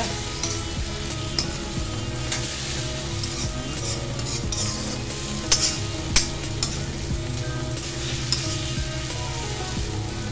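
Soya chunks and masala sizzling in an iron kadhai as a steel slotted spoon stirs and scrapes them around the pan. A few sharp clinks of the spoon against the iron come through, the two loudest a little past the middle.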